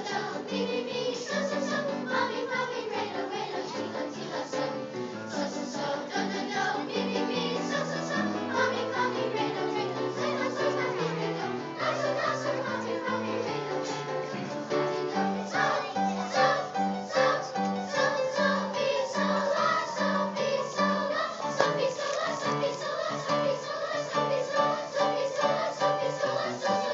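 Children's choir singing a song, with a line of low held notes under the voices.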